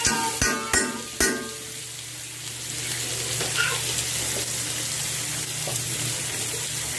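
Pork chops and butter sizzling in a cast iron skillet, a steady frying hiss. Three sharp knocks come in the first second and a half.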